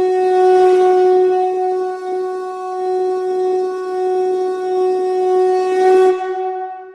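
A single long note blown on a horn-type wind instrument, held on one steady pitch with a breathy edge. It breaks off about six seconds in and leaves a fading ring.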